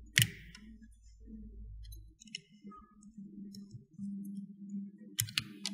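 Side cutters snipping a nylon zip tie: one sharp snap about a quarter second in, then a few more quick snaps near the end, over faint background music.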